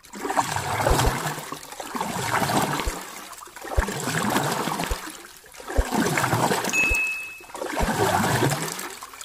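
Water sloshing and splashing in swells that rise and fade about every two seconds, with a few dull low knocks among them. A brief high beep sounds about seven seconds in.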